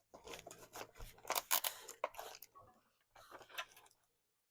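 Scissors snipping and crunching through the bike's shipping packaging, in a few irregular bursts that are loudest about one and a half seconds in.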